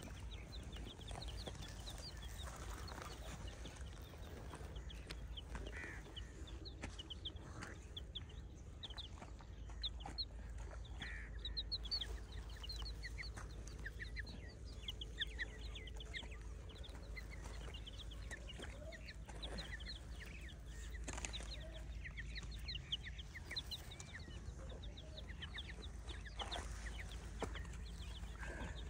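Chicks peeping: many short, high cheeps, several a second, over a low steady rumble.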